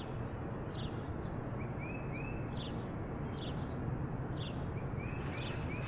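Small birds chirping: short high chirps and little whistles, about one a second, over a steady low background rumble.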